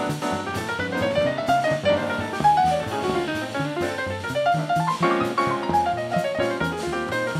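Live jazz piano trio: a grand piano plays fast runs that climb and then fall again near the end, over upright bass and a drum kit with frequent cymbal strokes.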